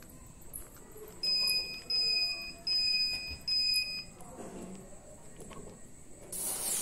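Four short electronic beeps about two-thirds of a second apart. Near the end comes a sudden hiss as the remotely fired fireworks fountains ignite and spray sparks.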